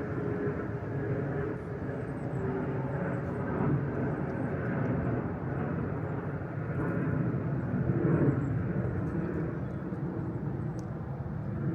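Steady low outdoor rumble of distant engine noise, swelling a little about eight seconds in.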